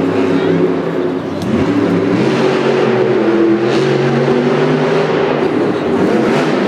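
Monster truck's supercharged big-block V8 revving hard, its pitch rising and falling as the truck spins on dirt and then accelerates up a ramp into a jump near the end.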